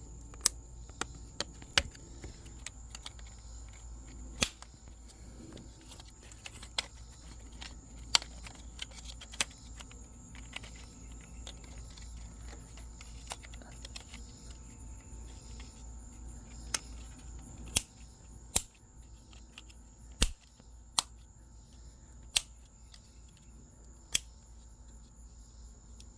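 Sharp, irregular plastic clicks and snaps as the engine wiring harness of a 2013 VW Passat TDI is pressed back into its plastic loom channel. A steady high insect chirring runs underneath.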